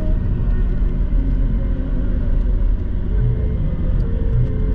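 A 4x4 vehicle driving along a rough dirt track, heard from inside the cabin: a steady, loud low rumble of engine and road noise.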